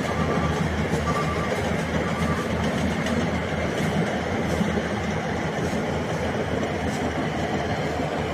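Small rice combine harvester running steadily, with an even, continuous machine din.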